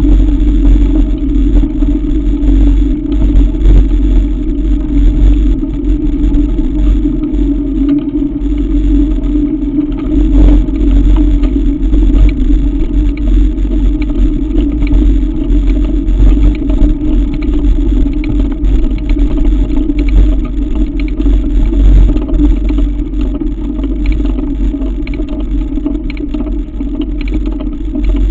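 Mountain bike rolling over a gravel track, with a steady rumble of tyre and frame vibration and wind, heard through a camera mounted on the bike, with scattered small clatters of gravel and chain.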